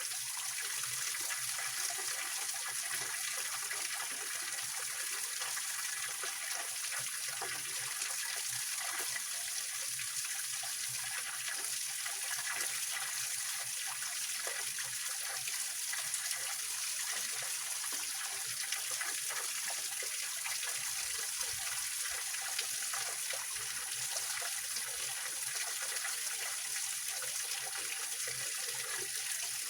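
Small waterfall and rocky stream, water splashing and trickling over rocks in a steady, unbroken hiss.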